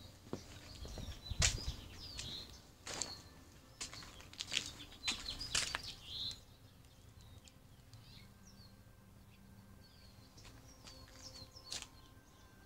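Small birds chirping, with many short high calls throughout. A few sharp knocks or clicks fall in the first half, the loudest about a second and a half in.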